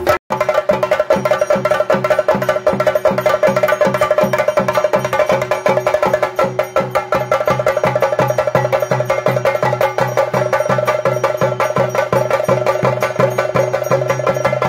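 Fast, steady ritual drumming on chenda drums with cymbals, the usual accompaniment of a theyyam. The sound drops out for a moment just after the start, then carries on unbroken.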